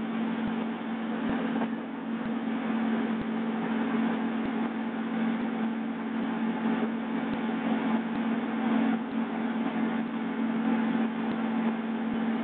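Steady drone of a helicopter heard from inside the cabin: an unbroken engine and rotor hum with a hiss above it.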